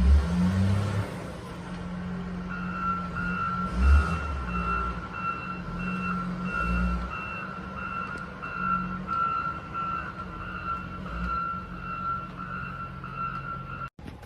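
A vehicle's reversing beeper sounds about twice a second, starting about two and a half seconds in, over a steady low vehicle rumble with a few heavier low thumps. It all cuts off suddenly just before the end.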